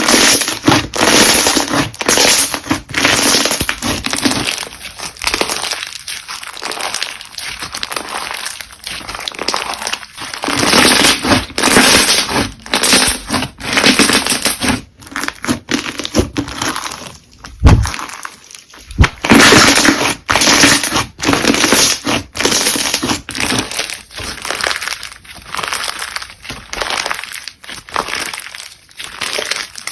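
Crunchy slime being squeezed and pressed by hand, crunching in rapid repeated bursts, with a brief pause a little past halfway.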